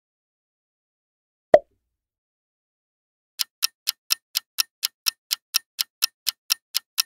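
A single sharp pop about a second and a half in, then a countdown stopwatch ticking sound effect, about four quick ticks a second, starting a little before halfway through.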